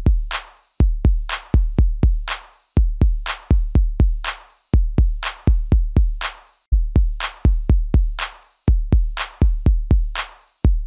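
Background electronic music: a steady drum-machine beat of deep kick drums and sharp snare hits.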